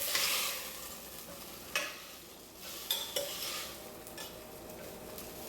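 Cut green beans sizzling in a pan of hot oil and spices as they are stirred with a spoon, the spoon scraping and knocking against the pan a few times.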